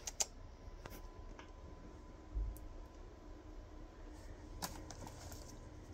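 Faint, scattered small clicks and taps, with one soft low thump about two and a half seconds in.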